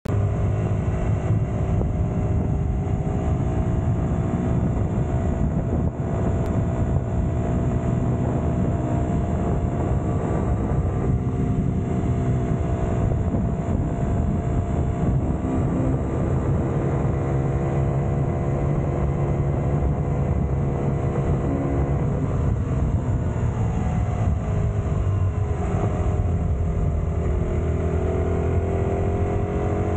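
Aprilia SX 125 supermoto's single-cylinder engine running under way, its pitch holding fairly steady, falling off about three-quarters through as the bike slows, then climbing again as it accelerates. Wind rush on the microphone underneath.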